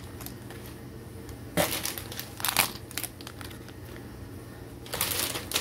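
Foil Lego minifigure blind bags crinkling as they are handled and set down, in three short spells.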